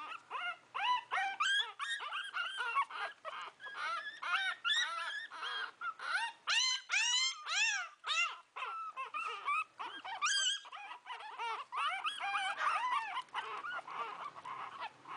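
Shih Tzu puppies whining and squealing: a rapid, unbroken run of short, high-pitched calls that rise and fall, several a second.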